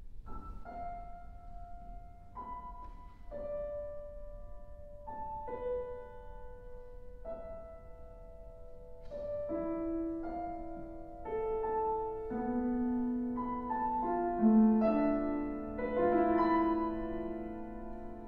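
Solo piano playing a slow contemporary piece in an unusual five-step mode (semitone, two tones, tone, tone and a half, tone). Single notes enter one by one and are left ringing. In the second half lower notes join and the texture thickens and grows louder.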